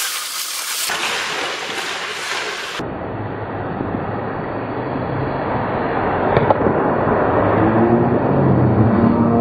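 Live ice-rink sound of hockey play around the net, a steady noisy rumble.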